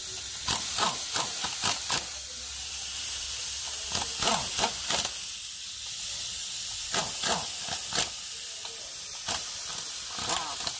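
A steady hiss, with many short metallic clicks and clinks scattered through it from hand tools working behind the engine's fan clutch. The hiss sets in suddenly.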